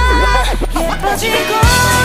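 Background pop music with a deep bass line and held synth notes.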